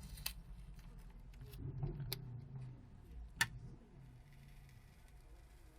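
A few sharp clicks and taps from handling and peeling apart phone parts during a smartphone teardown, the loudest about three and a half seconds in.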